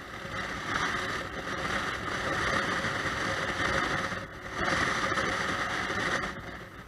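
Riding noise on a motorcycle helmet camera's microphone: steady wind and road rush with the Honda Shadow VT600's V-twin engine running underneath. It dips briefly about four seconds in.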